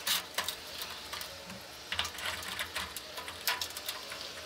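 Fire bricks being set in place by hand inside a metal grill, giving a string of light, uneven knocks and clicks of brick against brick and against the grill.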